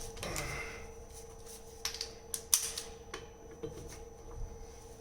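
Hand ratchet clicking a few times, sharp separate clicks as its handle is swung back while loosening a wheel's lug nuts, over a steady hum.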